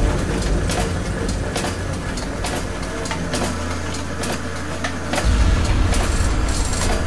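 Sound effects of turning machinery for an animated gear-and-chain logo: a steady low mechanical rumble with irregular sharp metallic clicks and ticks, the rumble swelling louder about five seconds in.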